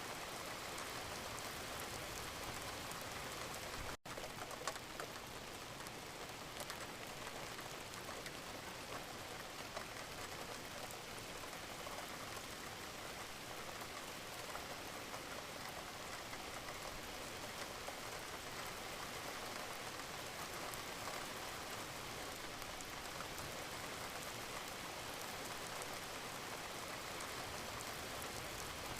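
Steady rain falling: an even hiss with scattered small drop ticks, broken by a brief momentary gap about four seconds in.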